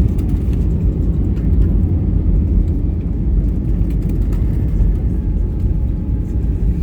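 Airbus A320 cabin noise from a window seat: a steady, loud low rumble of the engines and airflow, with no distinct bangs or changes.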